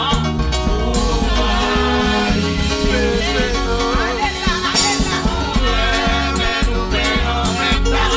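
A church congregation singing a worship song together, backed by a band with a steady beat of bass and drums.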